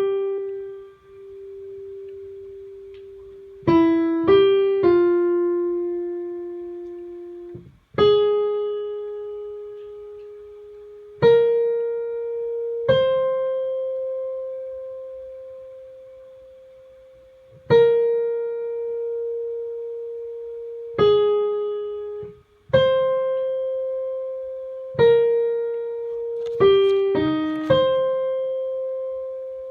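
Piano playing a choral alto line one note at a time, mostly slow held notes. Each note starts sharply and fades while held, with a few quicker notes about four seconds in and again near the end.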